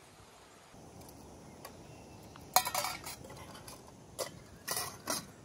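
Metal camp cookware clinking and scraping a few times, the loudest a sharp clink about two and a half seconds in, with further clinks near the end, over a low steady rush.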